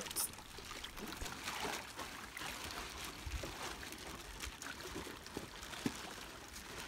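Water trickling and lightly splashing as plastic bags of milkfish fingerlings are emptied into a sea net pen, with a scatter of small irregular splashes at the surface.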